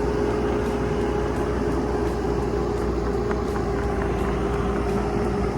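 Bobcat 337 compact excavator's diesel engine running steadily under the operator, with a constant steady hum over a low rumble.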